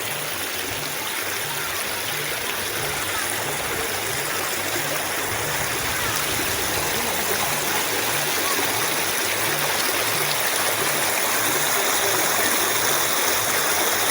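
Flowing water of a stream, a steady rushing that grows slowly louder.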